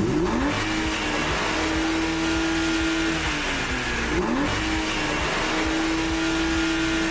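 Car engine run with no oil in it, revved hard twice. Each time the pitch climbs quickly, holds high for a couple of seconds, then falls away: abuse that ruins the engine.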